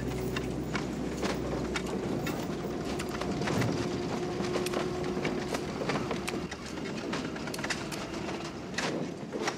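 Shovels scraping and crunching into heaps of coal, a dense run of irregular clinks and scrapes over a low steady rumble.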